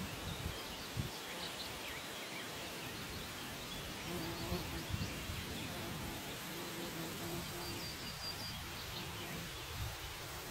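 Summer meadow ambience: a steady hiss with faint, scattered bird chirps and a low buzz that comes and goes midway.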